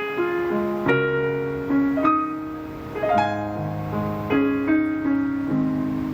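Piano playing an instrumental passage of sustained chords, a new chord struck roughly once a second.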